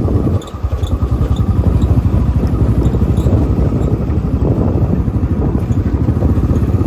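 Motorcycle engine running while under way on a rough dirt road, with a fast, steady pulsing that briefly drops about half a second in before picking up again.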